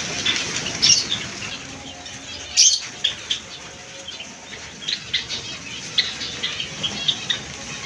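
Java sparrows fluttering their wings, with many short high chirps or clicks. Two louder flaps come about one second and two and a half seconds in.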